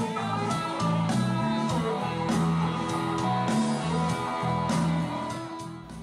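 Background music: guitar with a steady beat, dropping away near the end.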